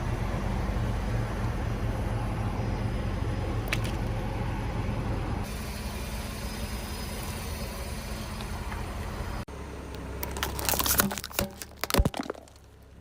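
Car engine and tyres running steadily at low speed, then a quick run of sharp cracks and crunches near the end as the car's tyre crushes objects under it.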